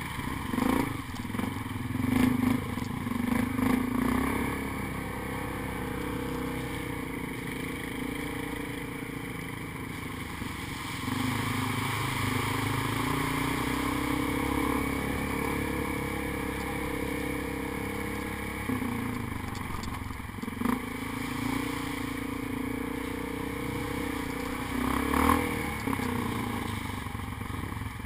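ATV engine running as it is ridden over a rutted, muddy dirt trail, the pitch rising and falling with the throttle. The machine clatters and jolts over the bumps, loudest in the first few seconds and again about 25 seconds in.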